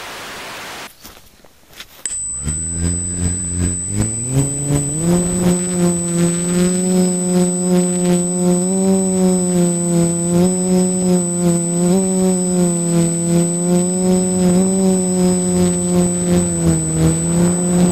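A second-long burst of static hiss, then a quadcopter's electric motors and propellers spin up in steps over a few seconds. They settle into a steady drone with a regular pulsing beat, the pitch wavering slightly with the throttle.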